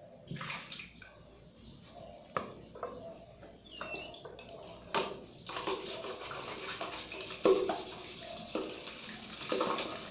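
Water running and splashing during cleaning up, with scattered knocks and clicks; the water becomes steadier about halfway through.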